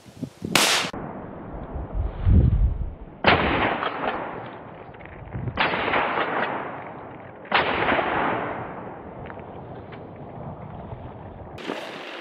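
Four shotgun shots fired at ducks, the first about half a second in and the rest about two seconds apart, each trailing off in an echo. A low thump comes between the first and second shots.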